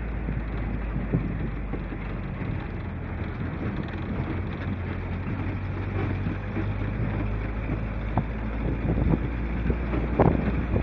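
Wind buffeting the microphone: a steady low rumble with a rushing hiss, growing gustier and crackling near the end.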